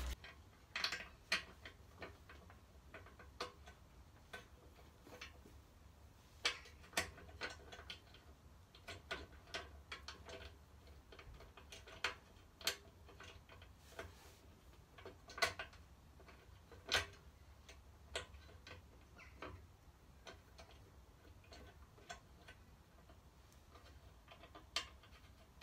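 Scattered light metallic clicks and taps at irregular intervals as a hex key works the front hex bolts of a motorcycle engine guard into their brackets, metal tool against bolt heads and bracket.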